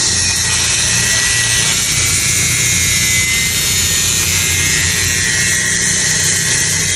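Toyota Corolla Altis engine idling with its silencer removed, running through a straight, unsilenced exhaust pipe. It runs steadily, a low exhaust note with a hiss above it, the raw, harsh sound of a car with no muffler.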